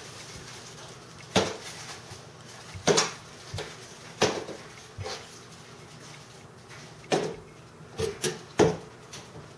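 About seven slow, uneven knocks on a hard floor, a second or so apart: a long wooden staff tapping the tiles as someone walks.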